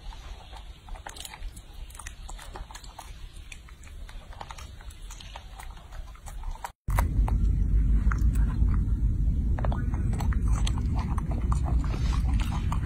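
Baby macaque chewing and smacking on food: a run of small, quick, wet mouth clicks. Just before halfway a steady low rumble comes in under the chewing and the whole sound gets louder.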